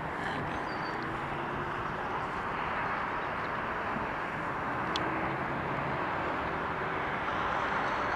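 Airbus A340-600's four Rolls-Royce Trent 500 jet engines on final approach: a steady jet noise that grows louder near the end as the airliner closes in.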